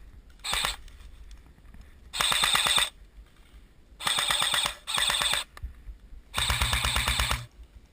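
Airsoft HK 416 replica rifle firing on full auto in five quick bursts of rapid clicking shots. The first burst is very short and the last is the longest, with a steady low whir under it.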